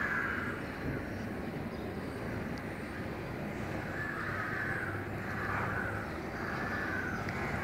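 Crows cawing: one call at the start, then a run of several calls from about four seconds in, over a steady low background rumble.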